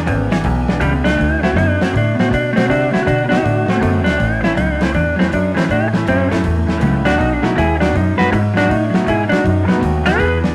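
Background music: a blues-style guitar track with bass and a steady drum beat, with a rising guitar slide shortly before the end.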